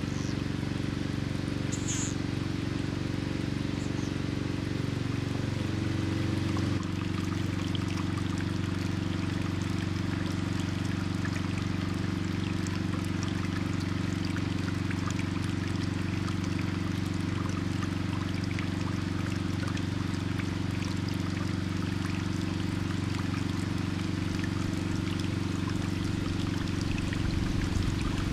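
Water running and trickling steadily, over a steady low hum that shifts slightly about seven seconds in.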